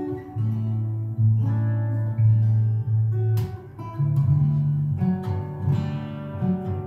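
Solo steel-string acoustic guitar played fingerstyle: held bass notes under plucked melody notes, with two sharp percussive knocks, about halfway through and again near the end.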